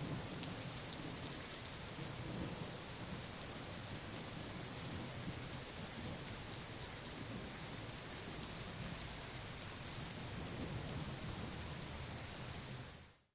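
Steady heavy rain with a low, rolling rumble of thunder underneath; the sound fades out quickly at the very end.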